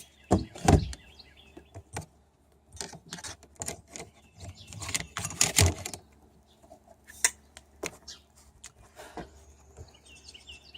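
Scattered clicks, knocks and light rattling from handling wire leads and connectors. A bird chirps a quick run of short high notes at the start and again near the end.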